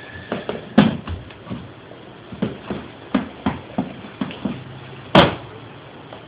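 Leather-soled dress shoes knocking on a hardwood floor and against a wooden shoe-shine box: a scatter of light clicks, with a louder knock about a second in and another about five seconds in.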